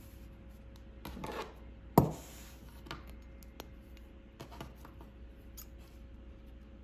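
Scissors and a roll of double-sided stabilizer tape handled on a hard tabletop. A soft swish, then a sharp knock about two seconds in, then a few light clicks and scrapes as the scissors are picked up and cut the tape.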